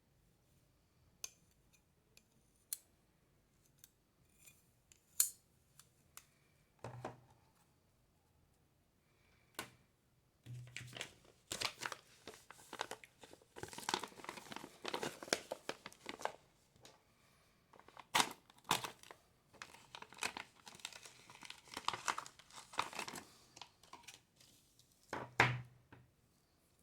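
Packaging being torn open and crinkled: a few scattered clicks and taps at first, then a long stretch of dense crinkling and tearing, with a thump near the end.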